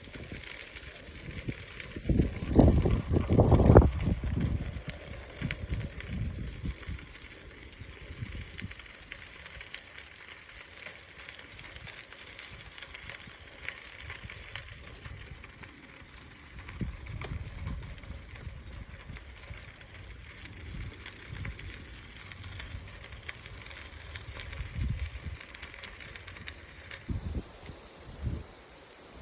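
Wind buffeting the microphone in irregular low gusts, strongest about two to four seconds in, over a steady faint hiss.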